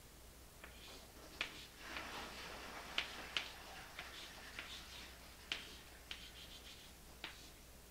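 Chalk writing on a chalkboard: a series of sharp taps as the chalk strikes the board, with light scratching strokes between them.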